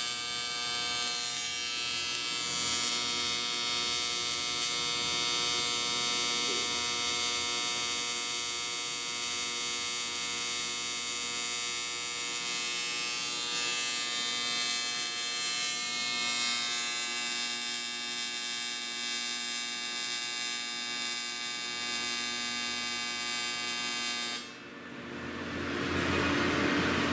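AC TIG welding arc on aluminum tube, a steady electric buzz that cuts off suddenly near the end as the arc is stopped. A rushing noise then rises.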